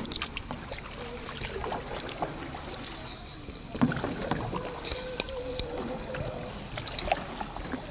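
Kayak paddles dipping and dripping, with water lapping against a plastic kayak's hull and scattered small splashes.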